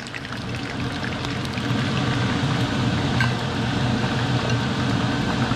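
Kitchen exhaust fan running, rising to a steady hum and rush over the first couple of seconds, with fish sizzling in hot frying oil underneath.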